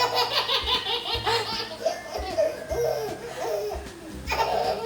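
A baby laughing, one peal after another.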